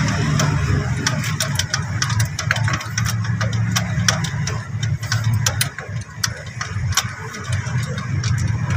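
A steady low engine hum, as of a vehicle idling nearby, under many sharp metallic clicks and clinks of tools and parts being handled.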